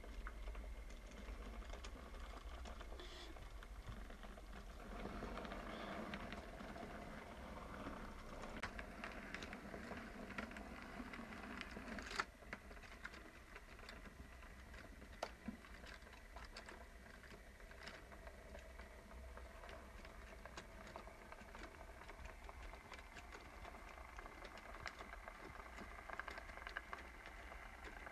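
Model railway container wagons rolling along the track, their small wheels ticking and clicking over the rail joints, over a faint steady whine. One sharper click about twelve seconds in.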